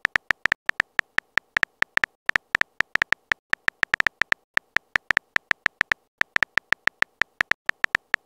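Simulated phone-keyboard typing clicks from a texting-story app, one short click per character typed, evenly paced at about six a second.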